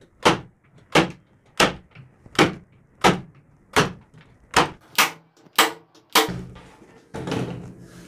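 Pumpkin 50170 electric nail gun firing 32 mm nails into 19 mm plywood: about ten sharp shots in a row, a little under one a second. A softer, drawn-out sound follows near the end.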